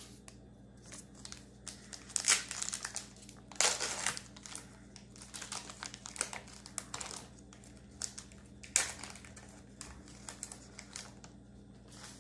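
Foil wrapper of a trading card pack crinkling as it is handled and torn open, in irregular bursts, loudest about two, four and nine seconds in.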